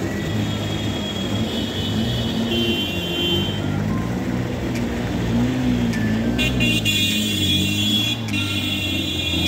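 Motor traffic running through floodwater: vehicle engines running, their pitch slowly rising and falling, with steady high tones over them for stretches.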